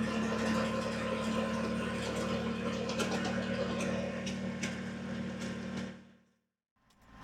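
Kubota BX23S tractor's three-cylinder diesel engine running steadily, with small clicks and rattles over it. It fades out to silence about six seconds in.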